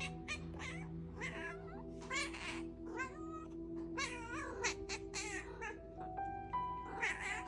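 Cats meowing and caterwauling in a series of drawn-out, wavering calls, over background music.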